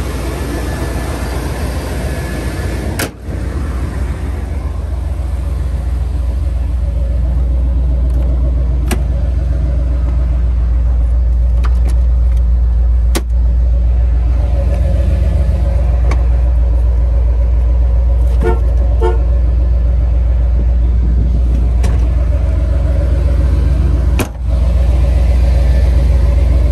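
1991 Chevrolet C10 (C1500) pickup's factory V8 running: idling under the open hood, then driving on the road as a steady, deep engine drone, a little louder after the first few seconds.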